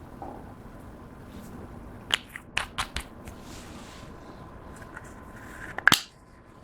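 A few sharp clicks or taps from small objects being handled, about two to three seconds in, then a louder quick cluster of clicks near the end, over a faint steady hum.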